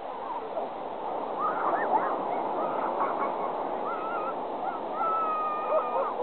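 Sea otters squealing: a run of short, wavering high calls, then one long held squeal about five seconds in, over a steady background hiss.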